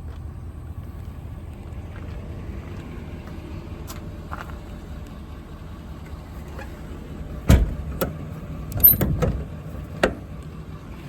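Ford 6.7 Power Stroke diesel idling steadily. A loud knock comes about seven and a half seconds in, then a run of sharp knocks and clatter, and one more knock near the end.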